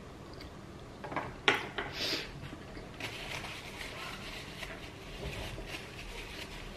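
Close-up eating sounds from a sushi meal. A few sharp clicks and knocks of utensils and food container come between one and two seconds in, then softer mouth and handling noises with small clicks.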